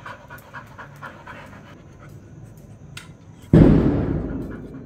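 Labrador panting quickly and rhythmically, about four breaths a second. About three and a half seconds in, a sudden loud thump cuts across it and fades away over about a second.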